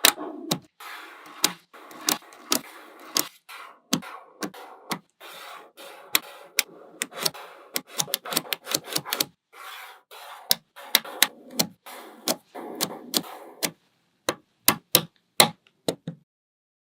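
Small magnetic balls clicking as they snap onto one another, with irregular sharp clicks over a softer clatter of balls shifting against each other. The clatter stops about three-quarters of the way through, leaving a few separate, louder clicks.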